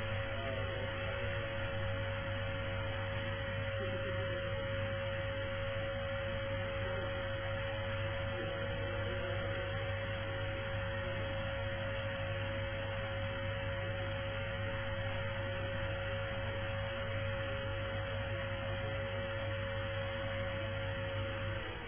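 Vacuum cleaner running steadily: a constant motor whine over a low hum and airy rush. It cuts off near the end.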